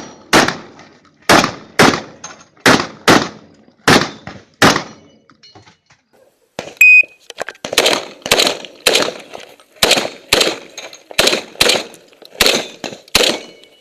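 Saiga-12 semi-automatic shotgun firing a rapid string of shots, several coming in quick pairs, with a pause of about two seconds near the middle before the shooting resumes.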